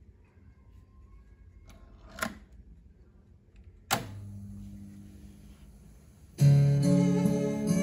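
A click about two seconds in and a sharper click near four seconds, followed by a steady low hum and hiss; then guitar music starts loudly about six and a half seconds in, played back from a hi-fi stereo cassette deck.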